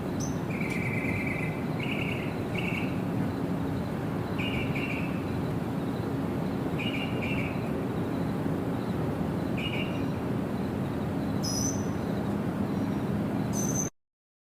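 Birds chirping in short repeated phrases every couple of seconds over a steady rush of water, with a few higher calls near the end. All sound cuts off abruptly just before the end.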